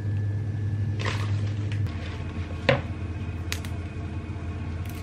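Kale leaves being torn and tossed in a plastic mixing bowl, with a wooden spoon knocking against it: a few short clicks and knocks, the loudest about two and a half seconds in. Under it, a steady low hum from a running kitchen appliance.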